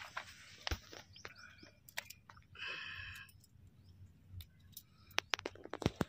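Small knife clicking and scraping against a sheep's hoof as the rotten hoof is pared, with a quick run of sharp clicks near the end. A short bird call comes about two and a half seconds in.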